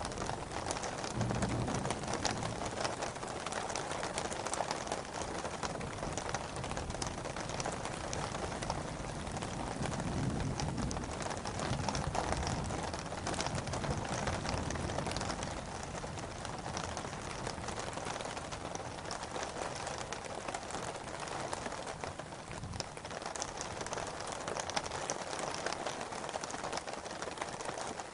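Steady rain falling, a dense patter of drops hitting surfaces with a low rumble underneath.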